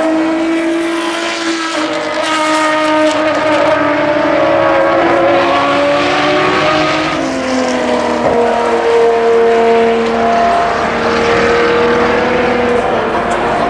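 Several Ferrari XX programme V12 track cars running hard, their engine notes overlapping and rising and falling with gear changes. About eight seconds in, one note drops, then holds steady until near the end.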